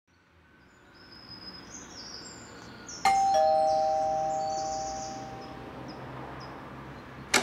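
Two-tone ding-dong doorbell chime rung once about three seconds in: a higher note, then a lower one, both ringing and fading away over the next couple of seconds. Faint high chirping runs in the background.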